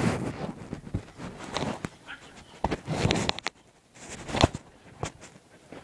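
Irregular knocks and rustling, the sound of a phone being handled or carried, with a few short louder bursts around the middle and near the end.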